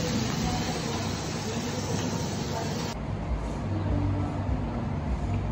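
Pork slices sizzling on a cast-iron grill pan over a portable gas stove, an even hiss. About three seconds in the hiss stops abruptly and gives way to a low steady hum.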